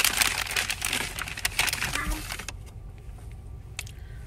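Paper wrapping crinkling and rustling as it is handled and opened, a dense crackle for about two and a half seconds, then quieter with a few small clicks.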